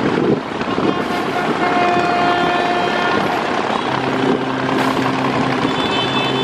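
River passenger launches sounding their horns over a steady, loud rumble of engines and water: a higher-pitched horn blast about a second and a half in, then a long, deeper horn from about four seconds in.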